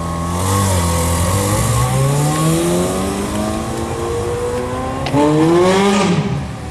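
Ferrari F430 Scuderia's V8 rising from idle as the car pulls away, its pitch climbing under acceleration. About five seconds in the pitch drops sharply at a gearshift, then climbs again in the loudest pull before falling away.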